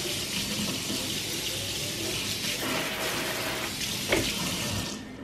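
Water running steadily from a spring-coil pull-down kitchen faucet into a stainless steel sink, shutting off near the end, with a small knock about four seconds in.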